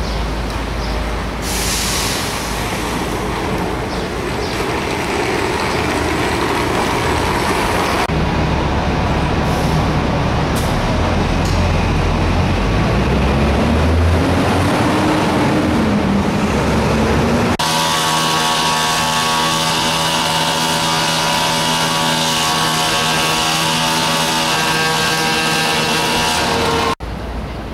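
Heavy vehicles in city traffic, in a few cut-together takes: low engine and road rumble with a whine that rises and falls in pitch, then a steady held chord of tones that stops abruptly near the end.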